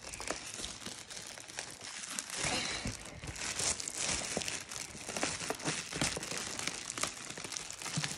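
Clear plastic wrapping crinkling and crackling as hands pull and peel it off a cardboard box.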